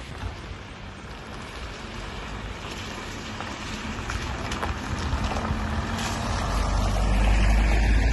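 A Volkswagen van drives past on a wet, potholed road, its tyres hissing through water. The noise grows as it approaches and is loudest near the end, with a deep rumble.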